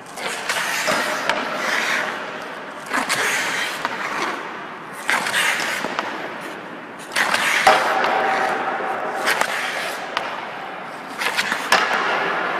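Ice hockey skates and stick on an empty rink: about five times a sharp crack of the stick striking a puck, each followed by a hiss of skate blades scraping across the ice that fades away. These are toe-drag shots, the puck pulled in with the toe of the blade and shot.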